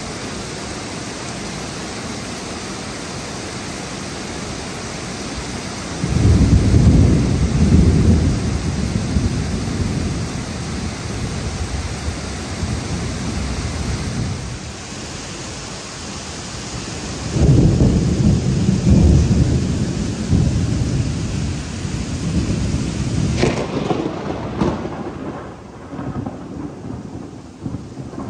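Heavy tropical rain falling steadily, with two loud rolls of thunder, one about six seconds in and one about seventeen seconds in, each rumbling low for several seconds before fading. Near the end the steady rain hiss drops away sharply.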